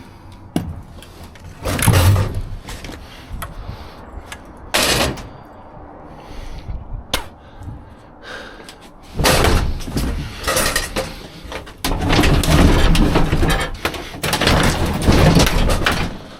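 Scrap metal being handled and thrown around in a dumpster: several separate heavy clanks and thuds, then a longer run of continuous clattering and banging from about halfway through.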